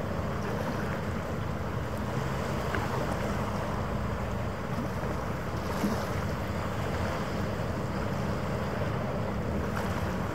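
Steady wind noise on the microphone over open harbour ambience, with a low, even rumble and no distinct events.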